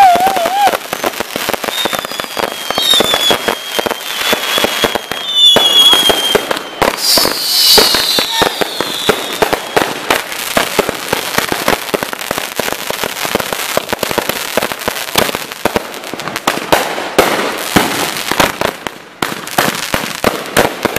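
Many consumer fireworks going off at once: a dense, continuous crackle of firecrackers and sharp pops and bangs. Several high whistles fall in pitch in the first half, around 3 to 8 seconds in.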